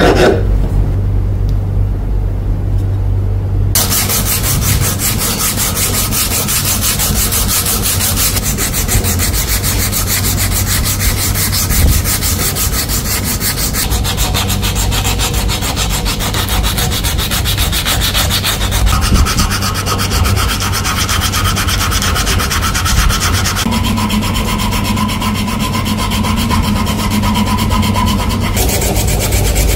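Wood being sanded: a steady abrasive rubbing with a low hum beneath it, changing character abruptly every few seconds.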